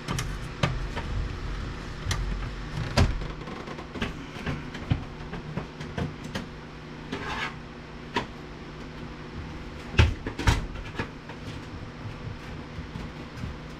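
Sheet-metal top cover of a weather-worn VCR/DVD combo unit being worked and slid back by hand: scattered knocks and clanks with a brief scrape, the loudest knocks about ten seconds in.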